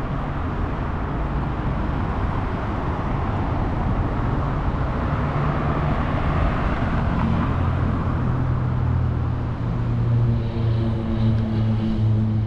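City street traffic: a steady wash of passing cars, with a low pitched hum coming in and growing stronger about ten seconds in.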